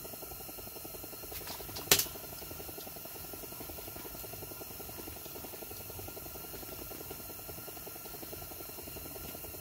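Quiet background with a steady faint hiss, broken by one sharp click about two seconds in.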